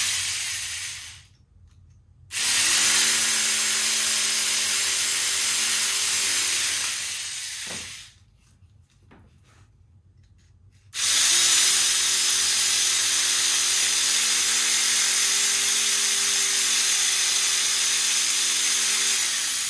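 A handheld power cutting tool trimming away material, running in three stretches: a short one, one of about five seconds, and a longer one of about eight seconds. Each is a steady hiss over a low motor hum, with quiet pauses between.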